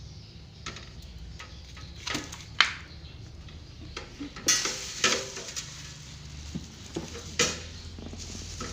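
Scattered clicks and clatter of metal parts and tools being handled on a workbench, with a few sharper knocks, over a steady low hum.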